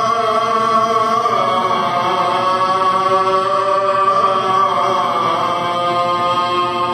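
Devotional Islamic chanting laid over as soundtrack: a sung vocal line of long held notes that glide slowly up and down.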